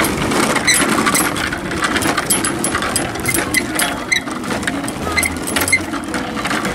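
Children's bicycle with plastic training wheels rolling over paving, a steady rattling clatter with rapid small ticks.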